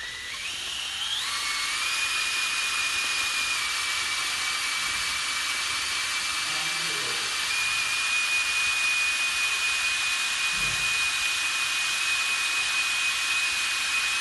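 Cordless drill driving the right-angle reduction gearbox of a mechanical wheel dolly (positioning jack), closing its rollers. It spins up in steps over the first second and a half, then runs at a steady high whine, rising slightly about halfway through.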